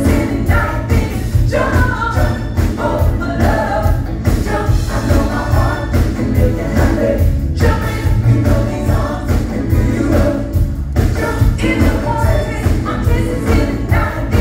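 Live pop/R&B band playing over a concert sound system with a steady, heavy beat, while several women's voices sing together over it.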